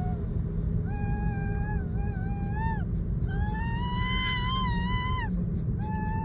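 Samoyed puppy whining in high, drawn-out, arching whines, three of them, the last the longest, over the steady rumble of the car's road noise.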